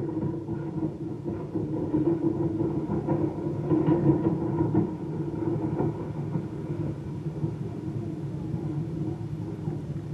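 Steam train hauled by Baldwin 2-8-0 locomotive #203 running with a steady low rumble, easing off a little in the second half.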